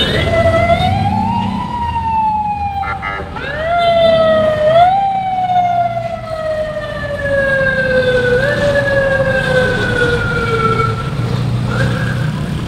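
An emergency vehicle's siren sounds over street traffic. It rises in pitch, then slowly slides down, jumps back up three times and fades out near the end.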